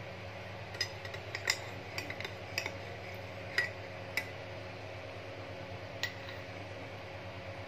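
Metal teaspoon clinking against the inside of a ceramic mug as tea is stirred: a quick run of light clinks over about three seconds, then one more a couple of seconds later, over a steady low hum.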